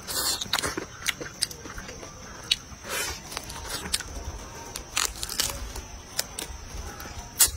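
Mouth sounds of a person eating: chewing and lip smacks, with short, sharp clicks and crunches at irregular moments as he bites and tears meat off a salt-baked chicken leg.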